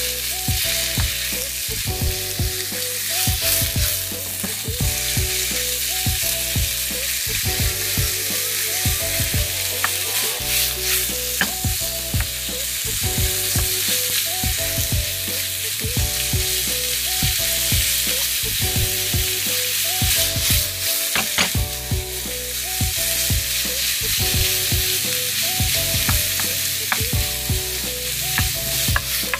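Sliced pork frying in hot oil in a nonstick pan, sizzling steadily, while a wooden spatula stirs it with frequent light knocks and scrapes against the pan.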